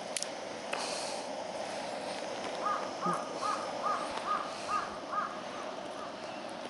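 A crow cawing a quick run of about seven caws, a little under half a second apart, starting a couple of seconds in and trailing off into fainter ones. A steady hiss runs underneath, and there are a couple of sharp clicks in the first second.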